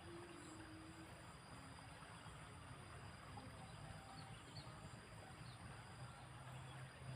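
Near silence: faint steady outdoor background hiss, with a low hum coming up near the end.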